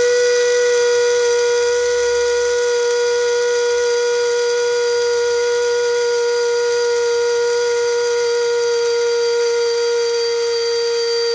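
SANGOZ 200 W stainless-steel mini electric spice grinder running at full speed with a steady high whine, its push button held down while it grinds dry coriander seeds to powder.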